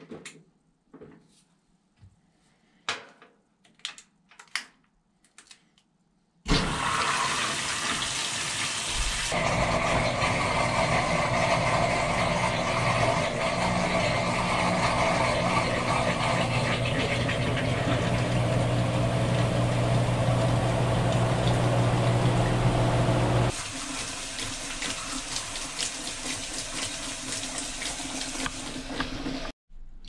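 Amana NTW4516FW top-load washing machine in its spin cycle: after a few faint clicks it starts suddenly about six seconds in, a steady low motor hum under rushing water, and drops in level about two-thirds of the way through.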